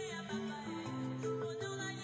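Background music: a slow melody of long held notes over sustained chords.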